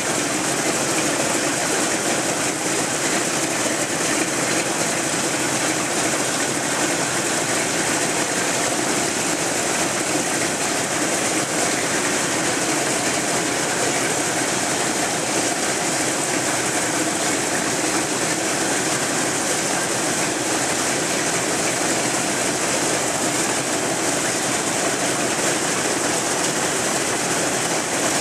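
Wright R-1820 Cyclone radial engines of a B-17 bomber running steadily at low power on the ground during startup.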